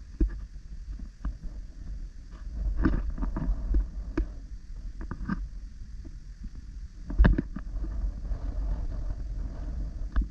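Wind rumbling on the camera's microphone, a steady low noise, with scattered short knocks and rustles throughout, the loudest a little past the middle.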